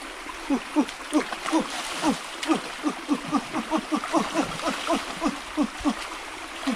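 An animal calling in a rapid, steady series of short falling notes, about four a second, over the trickle and light splashing of a shallow stream.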